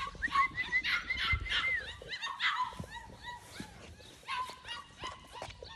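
Young English yellow Labrador puppies whimpering, a run of short, high-pitched whines in quick succession.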